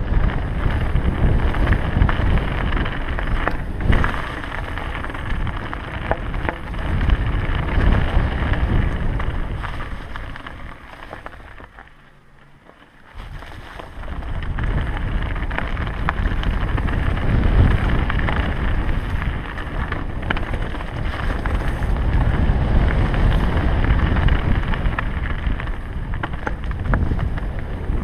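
Wind rumbling on a helmet-mounted action camera's microphone as a Specialized Enduro mountain bike rolls fast down a dry, leaf-covered dirt trail, its tyres rumbling and crunching over leaves. About twelve seconds in it drops quiet for about a second, then picks up again.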